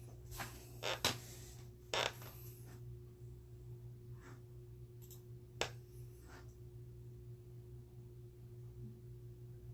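A few short rustles and clicks of something being handled, the loudest about one and two seconds in, over a steady low electrical hum.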